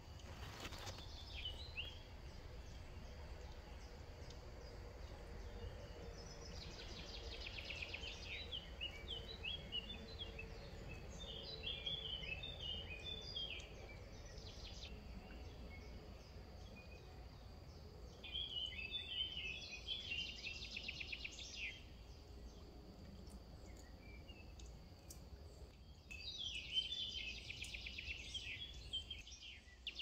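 Small songbirds singing in four bursts of rapid chirping phrases, each about two to three seconds long, over a steady low background rumble.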